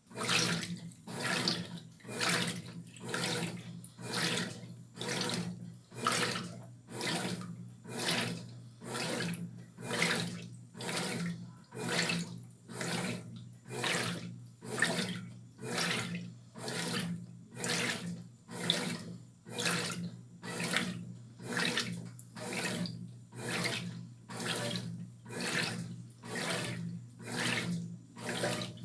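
Brastemp Tira Manchas Pro 12 kg top-loading washing machine agitating a wash load: water sloshing in regular surges about once a second, over a steady motor hum. The surges start right at the beginning, as the wash stroke kicks in.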